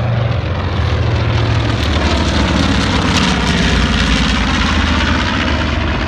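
Two piston-engined propeller warbirds, a P-51 Mustang and a T-28 Trojan, making a low formation pass: a loud engine drone that swells and falls in pitch as they go by, about halfway through.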